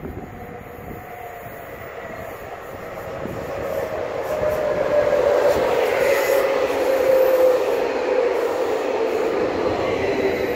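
Stadler FLIRT (VR Sm5) electric commuter train passing at speed. It grows louder to a peak about halfway through, then fades as it goes by, with a steady whine that drops slightly in pitch as it passes.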